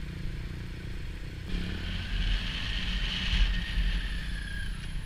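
Motorcycle engine running under way, heard from the camera's own bike, with wind and road hiss. About a second and a half in, both the engine and the hiss get louder as the bike accelerates.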